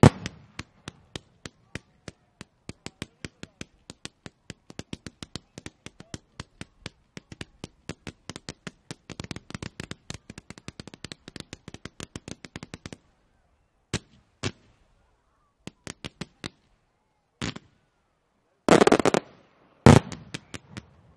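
Fireworks cakes firing a rapid string of sharp launch reports, about five a second, for most of the time. This thins to scattered single shots and ends with two loud, dense clusters of reports.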